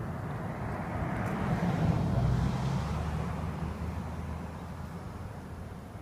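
An engine passing by: a low rumble that swells to its loudest about two seconds in, then fades away.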